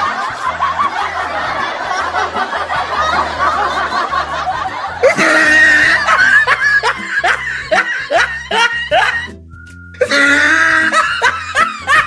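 Dubbed-in laughter sound effects, a crowd laughing, then a string of short giggles and snickers, over background music with a steady beat.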